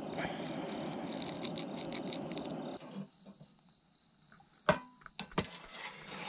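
Insects chirping steadily, with a rushing noise that stops abruptly about three seconds in, followed by a few sharp knocks, the loudest at the very end.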